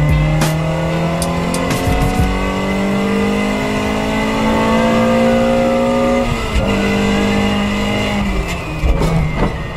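Car engine accelerating hard from inside the cabin, its pitch climbing steadily, then dropping about six seconds in as it shifts up, climbing again and dropping once more near the end. A sharp click comes about half a second in.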